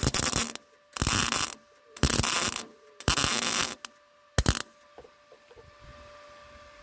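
MIG welder arc on sheet steel, welding a repair section into a car's door pillar in five short bursts about a second apart, the last one briefer. After the last burst only a faint steady hum remains.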